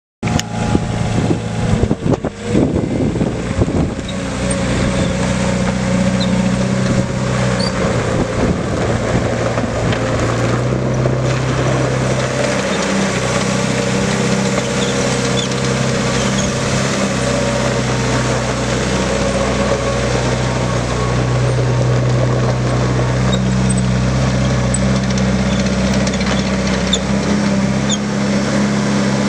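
Caterpillar 247B skid steer's diesel engine running steadily, with some knocking and clatter in the first few seconds. Its pitch shifts slightly about ten to twelve seconds in.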